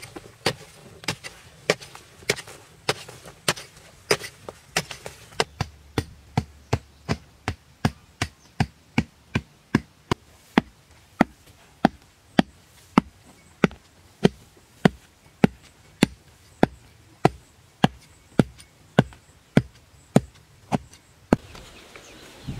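A metal hoe blade chopping into hard-packed earth in steady, evenly spaced strikes, about one and a half to two a second. Near the end the strikes stop and a soft rustle takes over.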